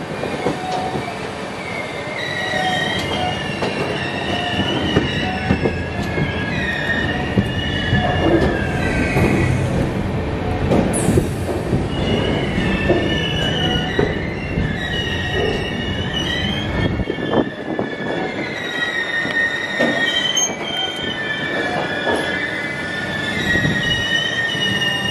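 Passenger train's steel wheels squealing on the rails as the coach rolls slowly along a station platform. Several wavering high squeals overlap over a rumble with irregular knocks from the wheels.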